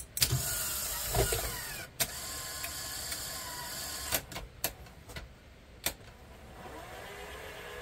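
A Sony SL-HF100 Betamax HiFi VCR's loading mechanism whirring as the cassette seats and the tape is threaded, with falling whines in the first two seconds, then a steadier motor run broken by several sharp mechanical clicks, settling quieter toward the end. It is the first power-up test after the video head drum was removed and refitted, and the drum spins.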